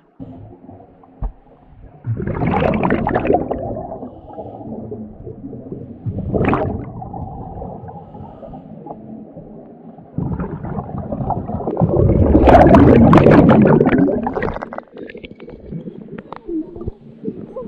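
Scuba diver's exhaled bubbles rushing past the camera underwater, in three bursts: a short one about two seconds in, a brief one at about six and a half seconds, and a long, loudest one through the middle. A low, muffled underwater rumble lies between them.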